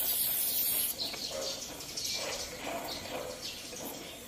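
Oxy-fuel gas torch flame hissing steadily while aluminium alloy is gas-welded with a filler rod, the hiss sharper for about the first second. Birds chirp faintly in the background.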